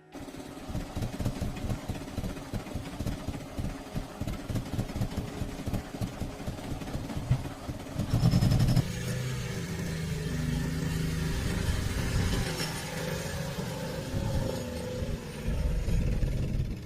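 A motor-vehicle engine running, pulsing unevenly at first, with a louder surge about eight seconds in, then running on more steadily.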